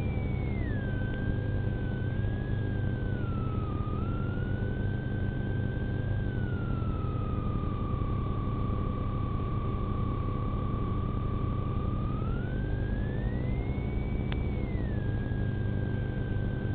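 Police car on the move: a steady low rumble of engine and road noise, with a high whine over it that slowly slides down, holds for several seconds, rises again about thirteen seconds in, then settles.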